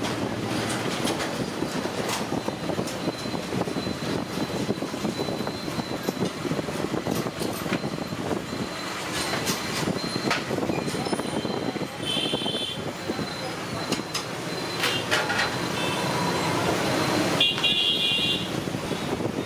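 Hot oil sizzling and crackling in a large kadai as masala vadas deep-fry, over steady street traffic noise. Two short vehicle horn toots come in the second half.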